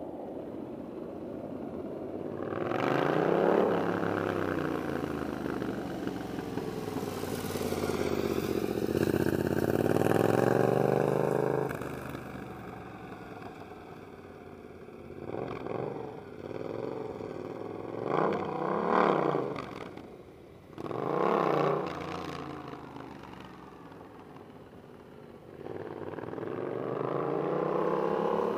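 Yamaha FZ-07's parallel-twin engine through a Toce aftermarket exhaust, revving up and down as the bike rides circles, growing louder and fading as it comes near and goes away. It swells long twice in the first half, then gives several short, sharp throttle blips in the second half, and rises again near the end.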